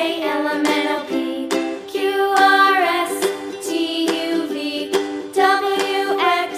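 Background music: a light, cheerful tune with a ukulele-like plucked accompaniment and a singing or sung-style melody line.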